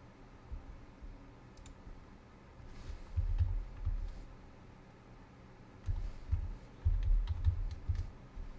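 Computer keyboard typing, heard as dull thuds, in two short bursts about three seconds in and again about six to eight seconds in, with a few sharp clicks.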